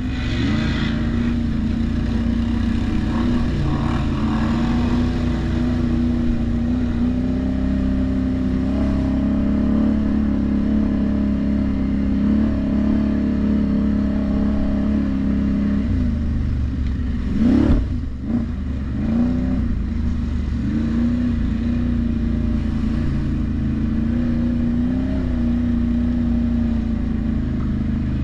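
ATV engine running under way, its pitch wandering up and down with the throttle, with a quick swoop in engine speed about seventeen seconds in.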